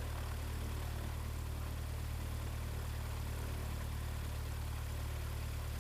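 Beechcraft light aircraft's piston engine running steadily at low power on the ground after the run-up, a constant low drone with an even hiss over it, while the oil warms up.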